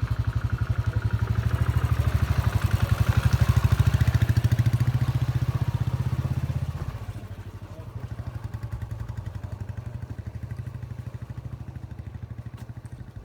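A small engine running with a rapid, even beat, louder for about the first seven seconds, then dropping to a quieter level.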